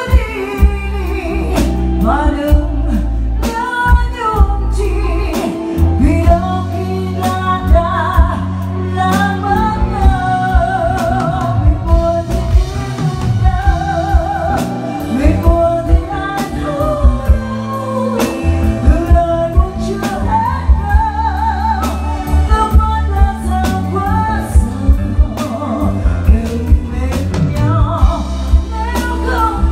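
A woman singing a Vietnamese ballad live into a microphone, with vibrato on held notes, backed by a band of electric guitar and keyboard over a steady beat.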